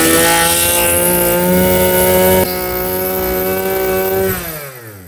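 Maruyama KC2300B 23cc brush-cutter engine running strongly at high speed with a steady pitch. The level drops a step about halfway through, then near the end the pitch falls away quickly as the engine slows.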